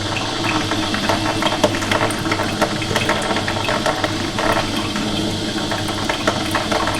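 Coffee machine brewing: a steady low hum with water gurgling and many small irregular clicks and crackles throughout.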